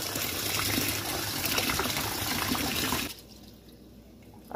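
Water pouring into a glass bowl of Ofada rice for about three seconds, then stopping. After that comes a quieter swishing of water as a hand rubs the rice to wash out the starch.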